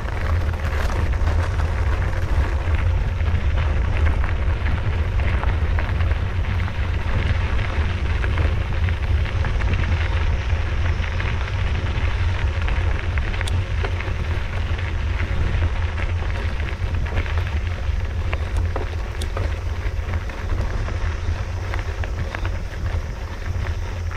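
Mountain bike riding along a dirt trail: a constant low rumble of wind buffeting the microphone over the crackle of knobby tyres on dirt, with scattered small clicks and knocks.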